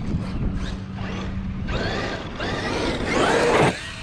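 Traxxas Mini Maxx RC monster truck's brushless electric motor whining up in several throttle surges, each a rising whine, louder as the truck speeds toward the ramp. The loudest surge cuts off suddenly near the end as the truck leaves the ramp.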